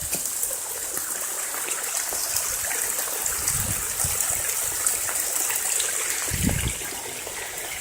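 Rainwater runoff flowing and splashing steadily as it falls into mud, an even watery hiss, with a couple of soft low bumps.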